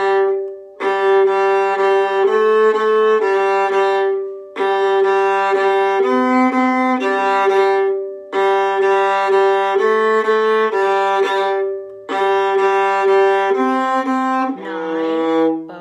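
Viola played with the bow: quick repeated notes in phrases of about three to four seconds, with short breaks between them.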